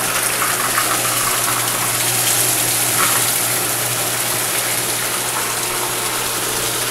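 Water and air gushing from the return pipe into a purge bucket as a pump flushes the geothermal ground loop to drive the air out, over the steady hum of the pump.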